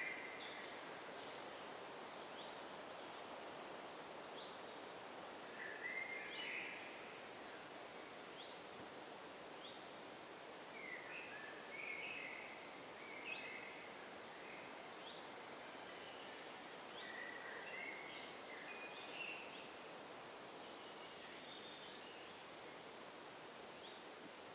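Forest ambience: small songbirds calling and singing, with short chirps and whistles throughout, over a steady faint background hiss. A high, thin falling note comes back every several seconds.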